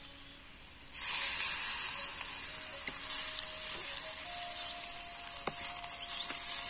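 Curry sizzling in a clay pot over a wood fire while a wooden spoon stirs it; the sizzle starts abruptly about a second in.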